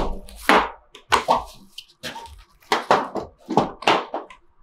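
A loaded battle belt with its pouches and holster being handled and shifted on a tabletop: a string of irregular knocks and clacks of hard gear against the table.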